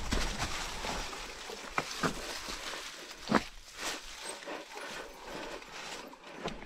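Mountain bike tyres rolling and crunching over dry fallen leaves on a dirt trail, with a few sharp knocks as the bike rattles over roots and rocks, the loudest about three and a half seconds in.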